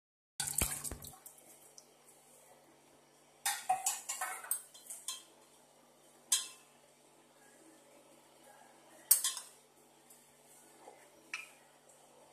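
Stainless steel pot and utensils clinking and knocking against each other in scattered bursts, with the loudest knock about nine seconds in.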